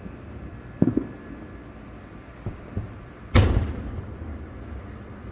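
Aerial firework shells bursting: a smaller bang about a second in, then a much louder boom a little over three seconds in whose rumble dies away over the next second.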